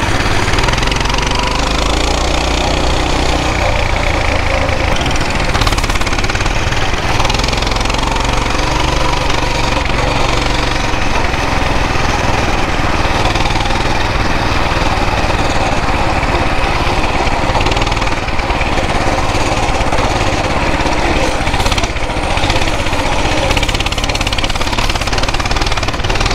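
Coleman BT200X mini bike's single-cylinder four-stroke engine running steadily while riding, with wind rushing over the microphone.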